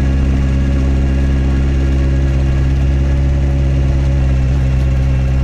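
Honda CB650R's inline four-cylinder engine running at low revs, holding one steady note.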